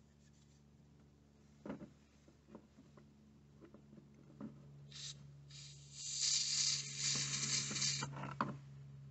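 Aerosol can of throttle body cleaner sprayed onto a paper towel: a short spritz about five seconds in, then a steady hiss lasting about two and a half seconds. Light rustling of the paper towel comes before and after, over a faint low hum.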